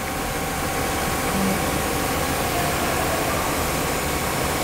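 Steady drone of running machinery: an even hiss with a faint steady hum on top, unchanging throughout.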